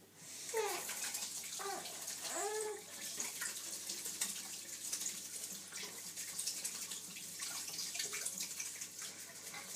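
Kitchen tap running into a sink while gloved hands are washed under it; the water comes on just after the start and stops near the end. A few short vocal sounds that rise and fall in pitch come in the first three seconds.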